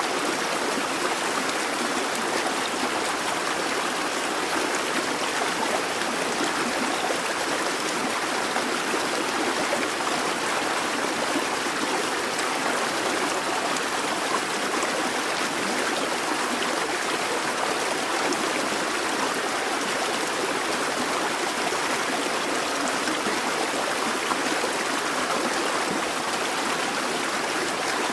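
Busy babbling brook: water running and splashing over rocks in a steady, continuous rush.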